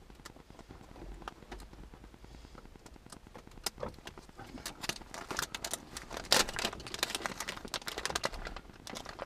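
Plastic clicks and snaps as a car's interior light lens cover is pried open to get at the bulb. The clicks are sparse at first and come thick and fast from about a third of the way in, with one loudest crack about two-thirds through.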